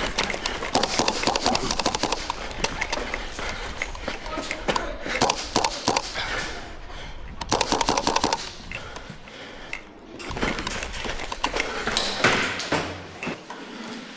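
Airsoft guns firing in rapid bursts of clattering clicks, with several bursts through the stretch, in an echoing indoor space.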